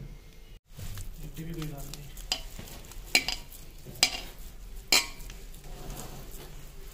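Metal utensil clinking against steel cookware: four sharp clinks about a second apart, with some stirring or scraping between them. There is a brief gap in the sound about half a second in.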